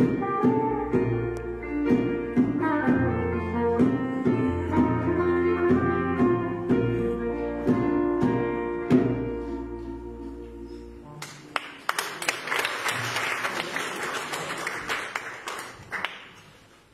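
The instrumental close of a church choir's song, with pitched notes over a low held bass that fades out about ten seconds in. The congregation then applauds for about five seconds, stopping suddenly.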